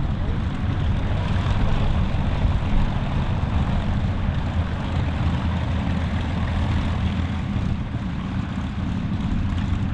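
Piston-engined propeller aircraft running, a steady low drone that holds without change.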